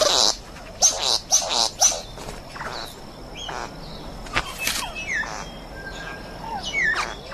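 Male satin bowerbird calling during his courtship display at the bower: a quick run of harsh buzzing calls, then scattered short chirps and several falling whistles.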